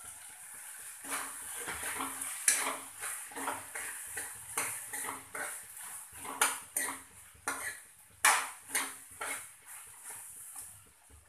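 Steel spoon stirring diced potatoes and capsicum in a kadhai, scraping and clinking against the pan in repeated strokes, with a few louder knocks, over a faint hiss.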